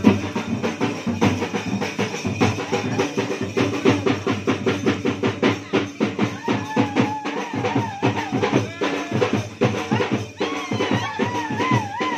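Music with fast, steady drumming. About halfway through, a wavering, ornamented melody line comes in over the drums.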